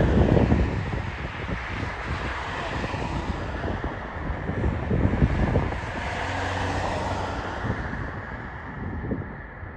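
Wind buffeting the microphone in uneven low rumbles. An engine hums faintly underneath for a couple of seconds past the middle.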